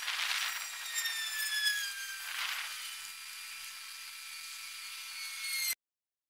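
Gasket scraper scraping old gasket off the cover flange of a Dana 35 differential housing: a thin, scratchy rasp in short strokes, strongest near the start and again about two and a half seconds in. A thin falling tone sounds over it for about a second and a half, and everything cuts off abruptly just before the end.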